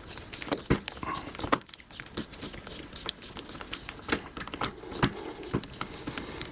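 Screwdriver backing a loose wood screw out of a door hinge, with irregular small clicks and scrapes of metal on metal and wood. The screw hole is stripped, so the screw turns without gripping.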